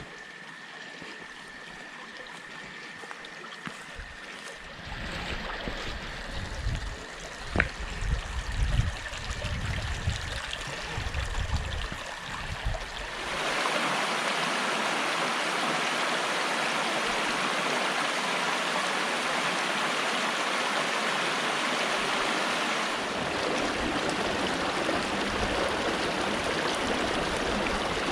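Prentice Creek's waterfall and rapids giving a steady rush of water, which jumps louder about thirteen seconds in. Between about five and thirteen seconds in there is low, uneven rumbling with a sharp knock.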